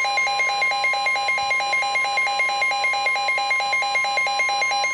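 The weather radio's steady warning alert tone near 1 kHz, which signals that a warning is being issued. Over it a receiver alarm warbles, switching between two pitches about four to five times a second.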